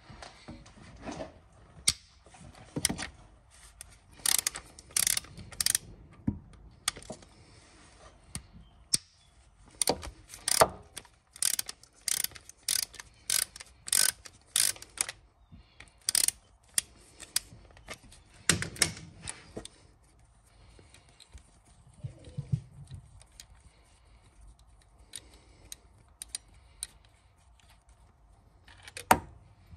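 Ratchet wrench clicking in quick runs of strokes while engine mount bolts are undone, with metal tools clinking between runs.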